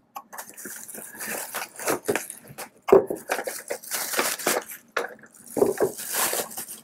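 Bubble wrap crinkling and rustling against cardboard as a bubble-wrapped wooden pochade box is handled and lifted out of its shipping box, with a sharper knock about three seconds in.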